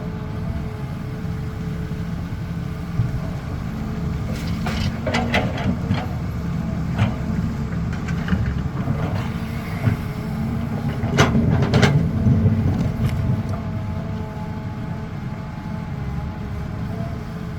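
Caterpillar 320 excavator's diesel engine running steadily under working load, with scattered clanks and knocks from digging and loading, the loudest cluster about two-thirds of the way through.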